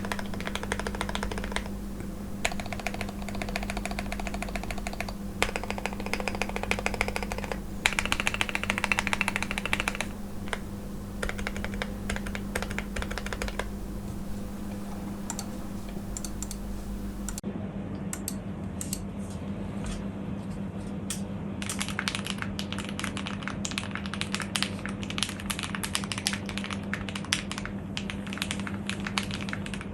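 Typing on a Zoom65 mechanical keyboard with lubed switches and Holee-modded stabilizers: fast runs of key clacks with short pauses. The sound of the typing changes about halfway through, as a second test take begins, and a steady low hum runs underneath.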